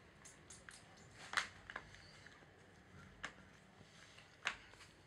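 Handling noise: a few light taps and clicks as a pair of ladies' sandals is handled and set on a stone work block. The sharpest tap comes about a second and a half in, with a few more after it.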